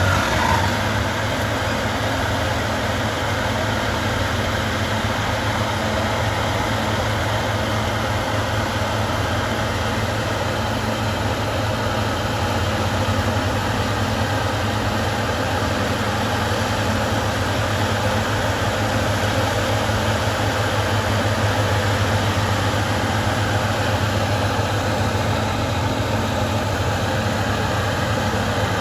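Bulldozer's heavy diesel engine running steadily, with a constant low drone.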